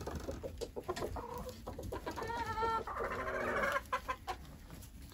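Chickens clucking and calling in a coop, a mixed flock of hens and roosters. There are short clucks throughout, and a longer drawn-out call about two seconds in, followed by another.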